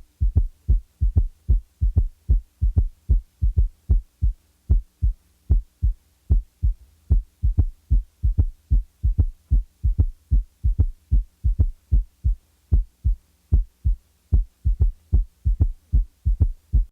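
Heart sounds with a third heart sound (S3 gallop): low thuds in a steady repeating rhythm, each cycle's first and second sounds followed closely by a soft low-pitched third sound in early diastole, which is left out in some cycles to show where it falls. A faint steady low hum runs underneath.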